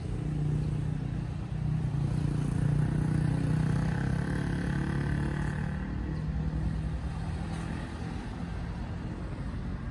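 A motor vehicle's engine running, a low hum that grows louder about a second and a half in and eases off after about six seconds.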